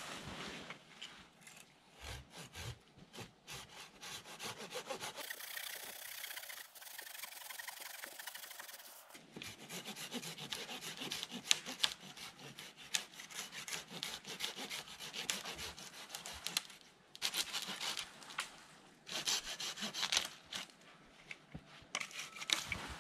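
Hand saw cutting back and forth through a thin tree trunk at its base, in runs of quick rasping strokes with short pauses.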